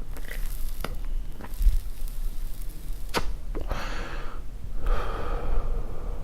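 A person smoking a cigarette close up: a few soft clicks and crackles, then two long breathy puffs in the second half as smoke is drawn in and blown out, over a low steady hum.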